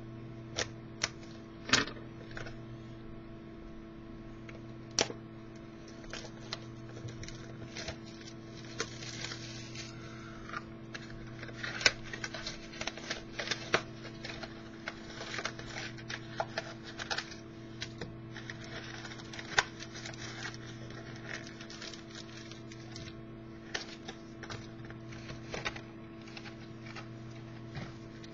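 A sealed box of trading cards and its packs being opened and handled by hand: scattered clicks and taps of cardboard, with crinkling wrapper rustles in a couple of stretches, over a steady electrical hum.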